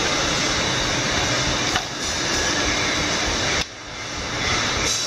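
Steady running noise of workshop machinery, a constant even hiss, dropping away briefly about three and a half seconds in before picking up again.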